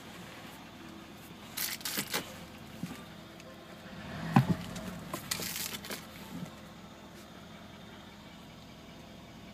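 A 2013 Mercedes-Benz SL63 AMG's twin-turbo V8 idling as a low steady hum inside the cabin. Brief sharp knocks come near two seconds in, a single louder thump about four and a half seconds in, and rustling just after.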